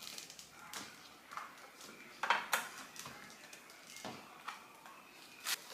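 Scattered light knocks and clatters of household items being handled, with a louder cluster about two and a half seconds in and another short clatter near the end.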